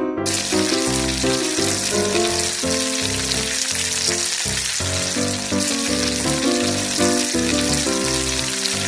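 Toy stove's electronic frying sound effect, set off by pressing a stovetop button: a steady sizzling hiss that starts abruptly just after the press, with background music underneath.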